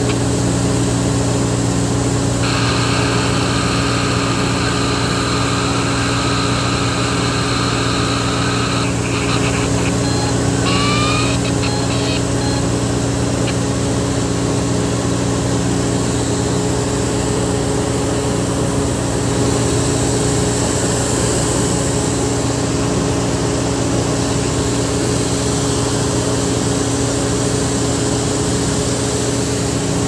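Fire truck's diesel engine running steadily with a constant low hum. A higher steady tone sounds over it for several seconds a couple of seconds in, ending in a few short rising chirps.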